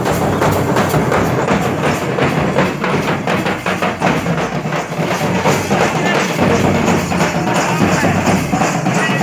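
Loud music driven by fast, steady drumming, with other percussion such as a tambourine-like jingle.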